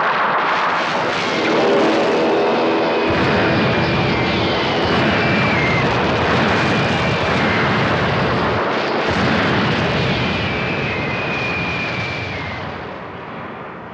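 Film battle sound effects: the drone of aircraft engines over a dense roar of gunfire and explosions, with several long falling whistles. The noise fades away near the end.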